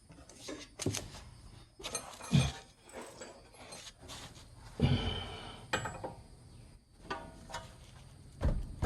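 Metal hand tools clinking and clanking: several separate knocks with a short ringing after some of them.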